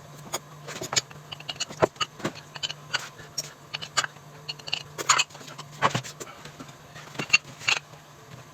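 Irregular clatter of dishes and utensils being handled at a table: a string of short clicks and knocks, some with a brief ring, over a low steady hum.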